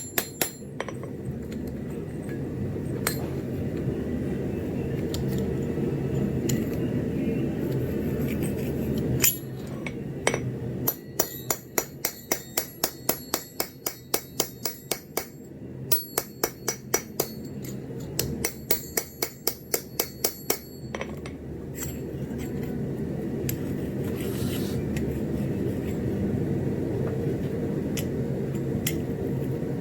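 Hand hammer striking steel on an anvil in a quick run of ringing blows, about two to three a second, for some ten seconds in the middle, with a few single blows before it. A steady low hum runs underneath throughout.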